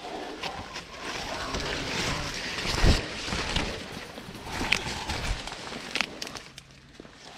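Corn leaves and stalks rustling and scraping against clothing and the camera as people push on foot through a standing cornfield, with a few sharp snaps, the loudest about three seconds in.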